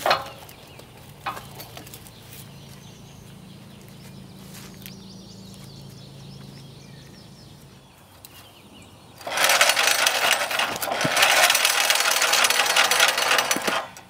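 Sharp wooden knocks as a pine log is levered and rolled with a cant hook. About nine seconds in comes a loud, rapid rattling that lasts about four seconds and stops abruptly.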